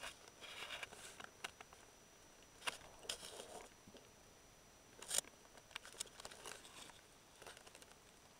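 Underwater recording through a camera housing: faint, sparse clicks and crackles, a few louder ones about a third of the way in and just past the middle, over a faint steady high whine.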